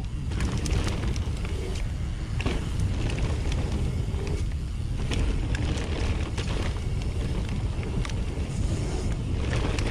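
Mountain bike descending a rough trail: steady low rumble of wind buffeting a helmet-camera microphone and tyres rolling over dirt, with scattered clicks and knocks from the bike rattling over bumps.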